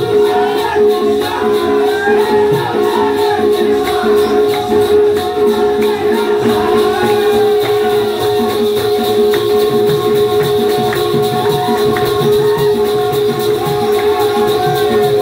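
Live folk music: a voice singing over a steady held drone note, with jingling percussion keeping a quick, even beat.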